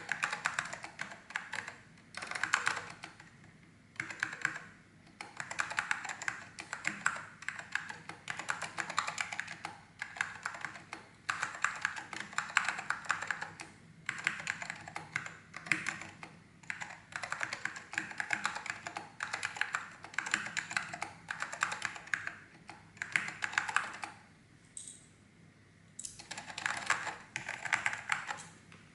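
Typing on an Apple Standard Keyboard with orange Alps switches: fast runs of key clicks in bursts, with a pause of about two seconds near the end.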